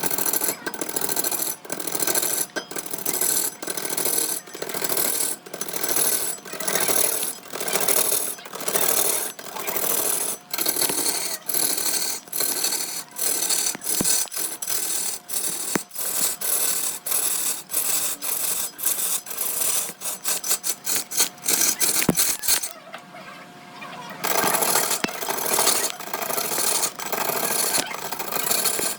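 Repeated rasping strokes of a tool scraping against wood, about two a second. The strokes quicken into a fast run about two-thirds of the way through, then pause briefly before carrying on.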